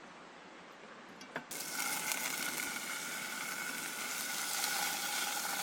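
Bacon starting to sizzle in a hot pan on a small wood-burning camp stove. A click, then the frying hiss comes on suddenly about a second and a half in and carries on steadily as the bacon hits the hot pan.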